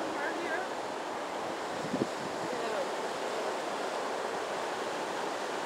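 Steady ocean surf washing on the beach, mixed with wind on the microphone. A brief low bump about two seconds in.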